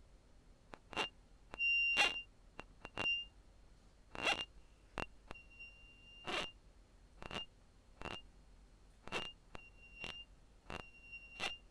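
Playback of a recorded sound made of irregular sharp clicks and transients, many joined by a short high-pitched squeak; the longest squeak comes about two seconds in. This is the output of an NMF source separation run at only 5 iterations, so the clicks and the squeak are still mixed together rather than split apart.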